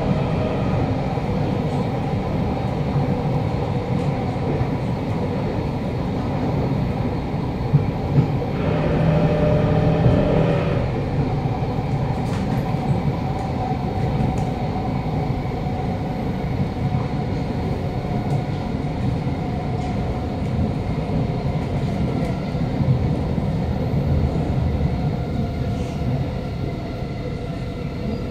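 Inside a Kawasaki Nippon Sharyo C751B metro car running at speed: continuous rumble of wheels on rail with the strong hum and vibration of the traction motors. The tone shifts briefly about nine seconds in.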